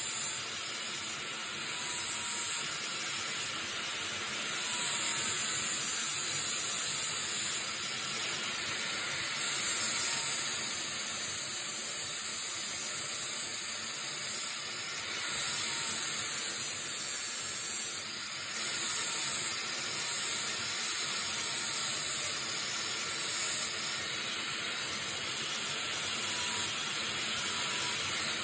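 Angle grinder running with its wheel pressed against a metal rod that spins in a drill press chuck, the drill press serving as a makeshift lathe. A steady grinding hiss grows louder in stretches of a second to a few seconds each time the wheel bites into the spinning rod.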